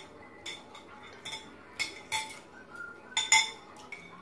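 A metal spoon clinking against a ceramic soup bowl: about six light, irregular clinks with a short ring, the loudest a little after three seconds in.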